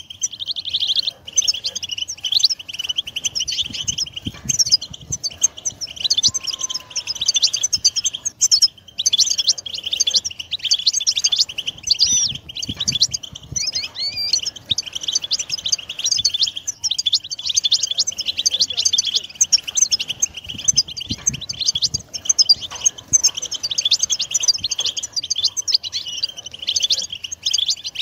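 European goldfinches singing: a dense, continuous stream of rapid, tinkling twitters and chirps, several birds overlapping without a break.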